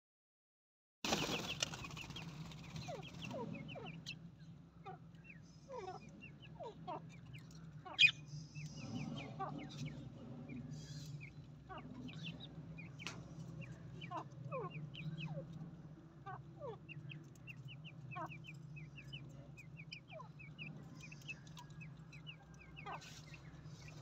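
A flock of budgerigars calling: many short, quick chirps that drop in pitch, overlapping throughout, over a steady low hum. One sharp click about eight seconds in.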